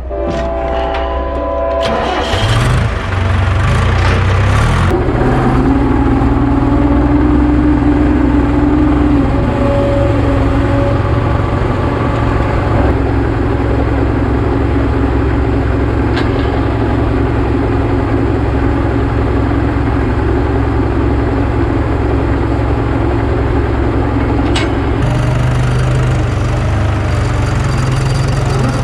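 The 695 tractor's engine starting about two seconds in, then running steadily; its pitch steps up once near the end as the engine speeds up.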